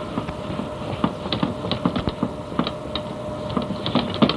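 Whiteboard being wiped clean with an eraser: a quick, irregular run of short rubbing strokes and taps against the board, coming thicker near the end.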